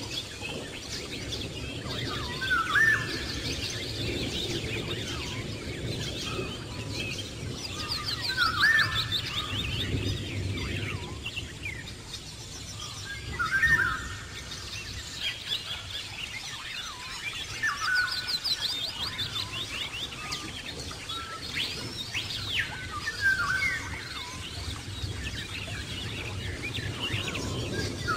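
Birds chirping and singing. A short chirped call recurs every few seconds, with fast, high trills between, over a low steady background.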